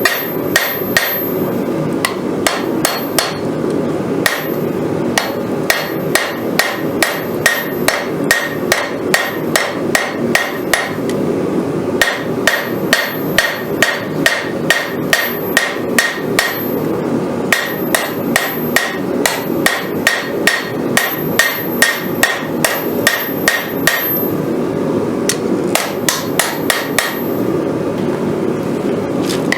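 Hammer blows on hot Damascus steel on an anvil while forging a knife blade to shape: quick runs of ringing strikes, about three a second, broken now and then by short pauses. A steady roar runs underneath.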